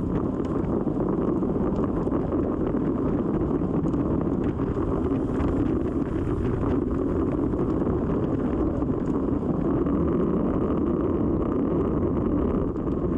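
Steady wind noise rushing over the microphone of a camera riding along on a road bicycle.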